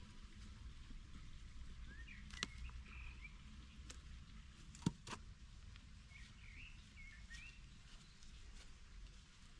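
Faint outdoor background with short chirping phrases of birdsong, twice. A few sharp clicks from pruning shears and a hand tool being handled, the loudest about five seconds in.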